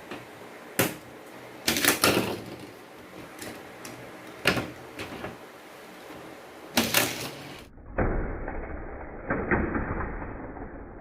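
Hot Wheels die-cast cars on plastic track: a string of sharp plastic clacks and clatters. After a cut near the end, cars roll along the track with a low rumble and a few more clicks.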